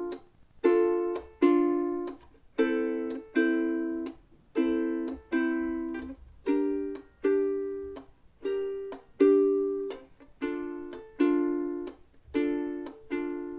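Ukulele strummed in a steady rhythm, working through a Dm–Am–Gm–Dm minor chord progression, with down-up strums and muted percussive chucks between the ringing chords.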